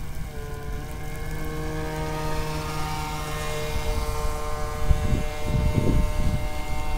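Electric RC V-hull boat running on its 42 mm two-blade propeller: a steady motor whine with several overtones as the boat turns on the water. A few low rumbles come about five to six seconds in.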